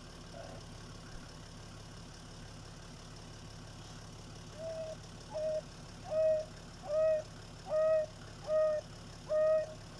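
African wild dog giving its repeated 'hoo' contact call, which calls the scattered pack back together. From about halfway in come short, clear hoots of one steady pitch, roughly one a second, each a little louder than the last.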